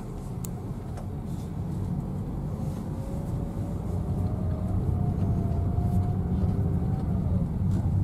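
Engine and road noise inside a moving car's cabin, growing gradually louder as the car gathers speed, with a faint engine note rising in pitch in the middle.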